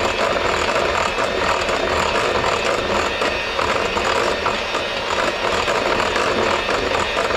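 Electric hand mixer running steadily at medium-high speed, its beaters whipping egg yolks into a sabayon in a glass bowl over a bain-marie, a continuous whir with a fast rattle.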